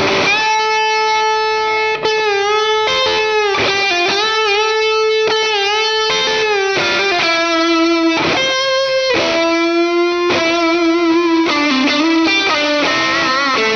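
Electric guitar played through a Valeton GP200R multi-effects pedal on a sweet, round lead preset. It plays a melody of held single notes with wide vibrato and string bends.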